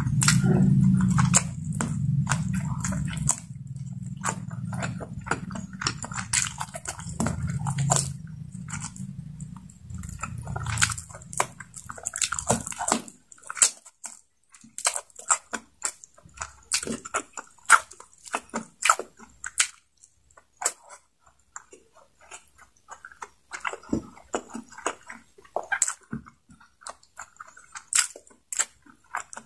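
Close-up mouth sounds of eating chicken neck by hand: biting, chewing and wet lip smacks in quick irregular clicks, with finger-sucking near the end. A low rumble sits under it for the first half and cuts off about thirteen seconds in.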